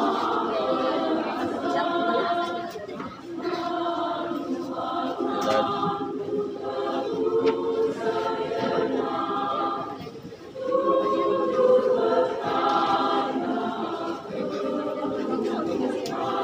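Women's choir singing a cappella in parts, holding sustained chords, with short breaks between phrases about three seconds in and again about ten seconds in.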